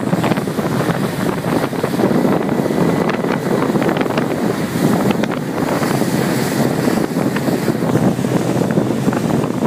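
Steady rush of wind buffeting the microphone over churning water and spray from a boat's foaming wake at speed.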